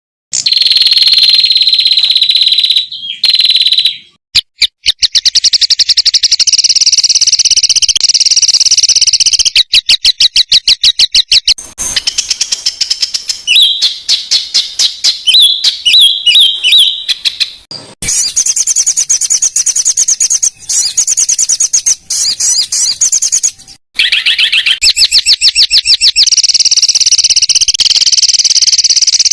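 Small songbirds singing rapid, dense high-pitched trills and fast repeated notes, a spliced bird-song tutor recording (masteran) that switches abruptly between phrases every few seconds.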